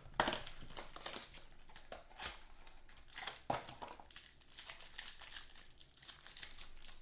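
Clear plastic trading-card wrapper crinkling and crackling as hands open it and handle the football cards inside. The crackles come in quick irregular bursts and are loudest just after the start.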